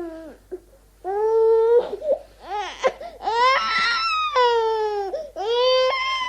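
Baby crying and fussing in a string of high-pitched wailing cries with short breaks between them, the longest and loudest about halfway through.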